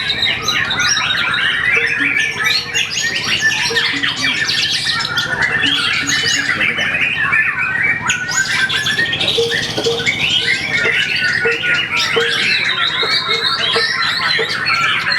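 Caged songbird singing without a break, a rapid, varied stream of chirps, trills and squawks made up of learned calls of other birds (its 'isian').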